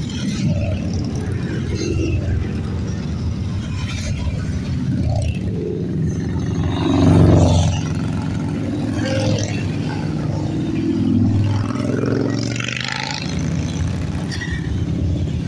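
A column of big touring motorcycles riding past one after another, their engines rumbling steadily. The sound swells as each bike goes by, loudest about seven seconds in and again a few seconds later.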